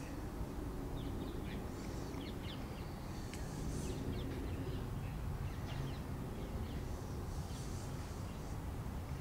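Small birds chirping on and off over a steady low background rumble.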